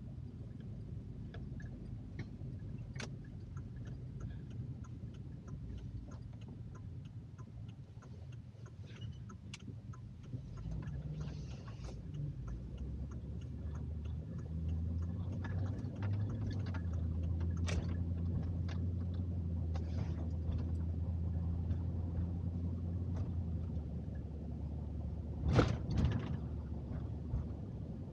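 Car cabin noise while driving: low road and engine rumble that grows louder and steadier about halfway through, with scattered small clicks. A couple of sharp knocks near the end.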